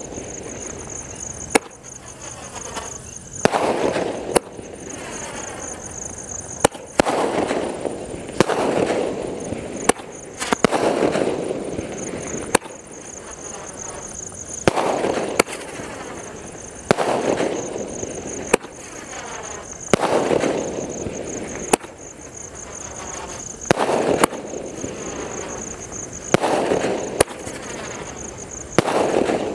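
An Ajanta 12-shot sky shot, a multi-shot aerial firework, firing its shots one after another. There is a sharp pop roughly every two seconds, each followed by a swelling hiss that fades, over a steady high-pitched background tone.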